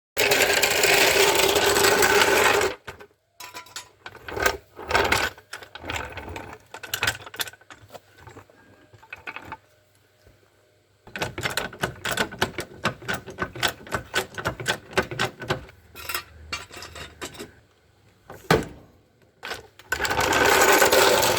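Mechanic's tools at work on a car's rear brakes. A loud power tool runs for a few seconds at the start and again near the end, and between those runs there is rapid clicking and metal knocks.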